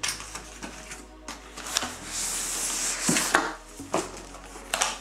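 Cardboard boxes being handled: a laptop box slid and pulled out of a brown cardboard shipping carton, with a long scraping rub of cardboard on cardboard about two seconds in and several sharp knocks of the boxes against each other.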